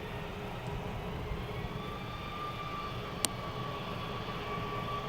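Airbus A321neo jet engines heard at a distance: a steady rumble with two steady whining tones, the higher one growing stronger about two seconds in. A single sharp click about three seconds in.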